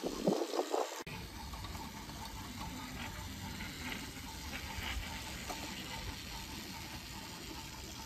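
Battery-powered wooden toy trains running on wooden track, their wheels clattering over the track joints, loudest in the first second. After that a steady low rumble with faint scattered clicks carries on.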